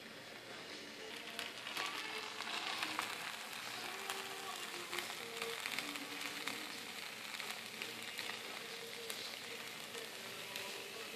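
Pad thai sizzling and crackling in a hot frying pan as the noodles are lifted out onto a plate, with background music.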